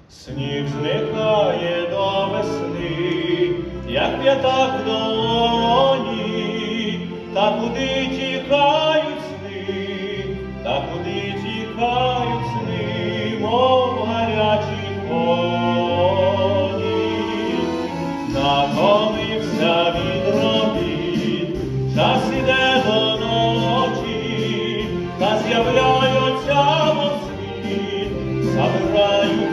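A man singing a solo song with instrumental accompaniment in a stage musical, heard from the theatre auditorium. The song starts just after a brief pause.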